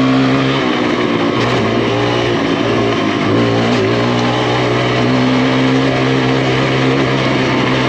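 Kawasaki KLX140 dirt bike's single-cylinder four-stroke engine running at a steady cruising throttle under the rider. It eases off briefly about half a second in and again about three seconds in.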